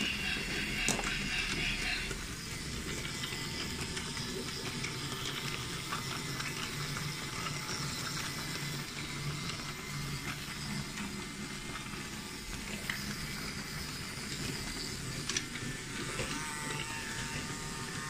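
Small electric motors of battery-powered Brio toy trains whirring steadily as they run on wooden track, with a higher whine joining near the end.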